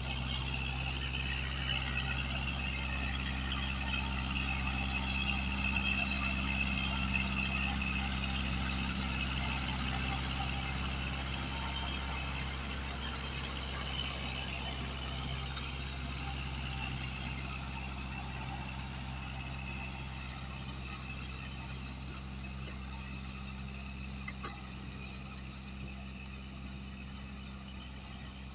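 Kubota L5018 tractor's diesel engine running steadily under load as it pulls a tiller through a flooded paddy, gradually fading as the tractor moves away.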